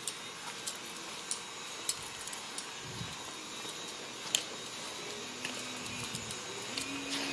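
Steady background hiss in a large room, with scattered light clicks and taps.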